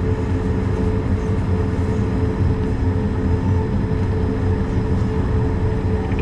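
Cabin noise of an Airbus A220-300 taxiing: a steady low rumble from the rolling aircraft and its Pratt & Whitney PW1500G geared turbofans at idle, with a steady hum running through it.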